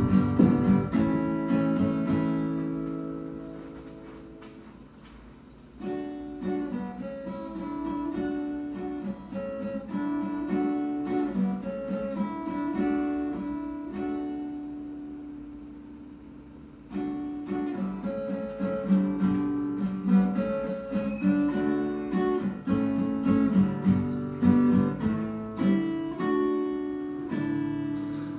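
Acoustic guitar being played. Picked notes and chords ring out, die away twice and start again.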